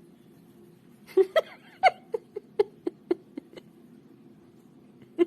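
A pet animal giving a quick run of about ten short, sharp calls, roughly four a second, starting about a second in and fading, with one more near the end.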